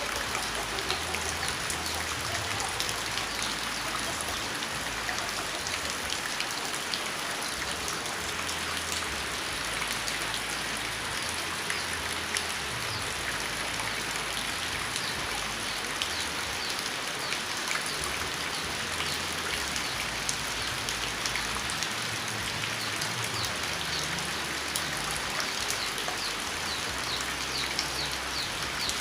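Steady rain falling, a dense patter of drops striking a surface.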